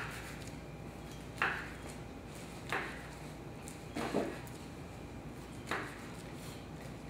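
A kitchen knife slicing through a nori sushi roll and knocking down onto a wooden cutting board, one short knock about every second and a half. The knock about a second and a half in is the loudest, and a double knock comes near the middle.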